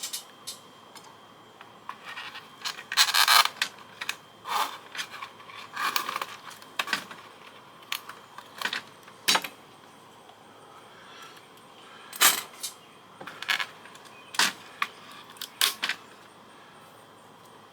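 Irregular clicks, clinks and short rattles of small metal and plastic parts being handled and pried apart: switches and contacts taken off a fax machine's circuit board. The bursts stop a little before the end.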